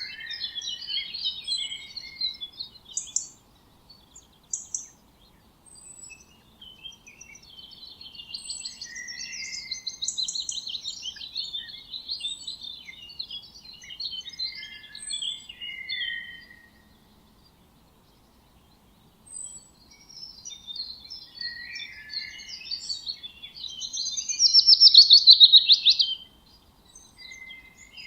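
Several songbirds chirping and singing in overlapping short high calls and trills. There is a short lull past the middle, and a loud, fast trill near the end.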